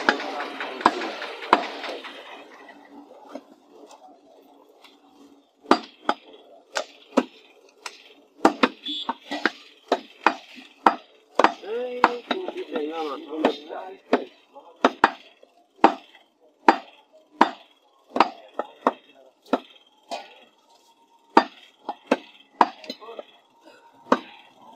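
Butcher's cleaver chopping beef on a wooden log block: repeated sharp chops, roughly two a second, starting about six seconds in after a quieter stretch.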